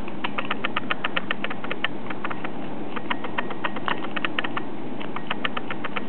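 Steel lock pick clicking against the spring-loaded pins inside a 6-pin disc padlock's cylinder as they are pushed up one by one: rapid, irregular metallic clicks, several a second, over a steady low hum.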